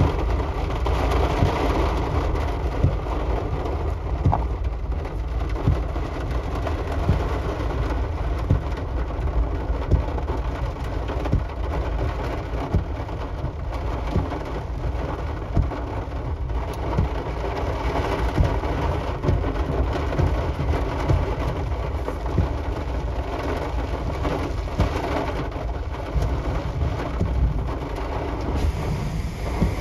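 Heavy rain in a thunderstorm: a steady hiss of rain with frequent sharp drop hits over a low rumble.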